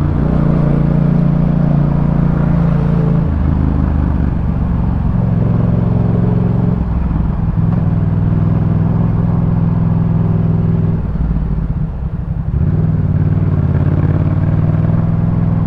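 Yamaha MT-07's parallel-twin engine through a Jeskap K4 full aftermarket exhaust, riding under load: a steady engine note that shifts to a new pitch a few times, with a short drop in loudness about twelve seconds in.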